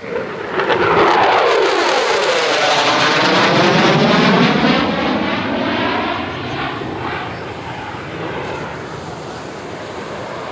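Thunderbirds F-16 Fighting Falcon jet flying low overhead. The jet noise comes in abruptly and loud, with a sweeping, phasing whoosh as it passes, then fades over the last few seconds.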